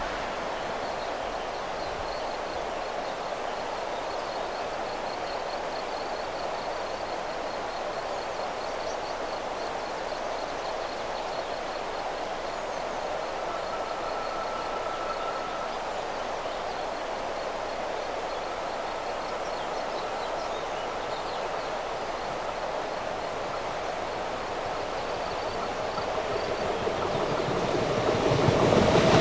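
ÖBB class 1144 electric locomotive and its train of tank wagons approaching on the rails: a steady, distant rolling noise that grows louder over the last few seconds as the train draws near.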